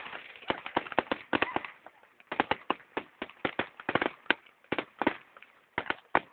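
Fireworks going off: a rapid, irregular run of sharp bangs and crackles, with a short lull about two seconds in.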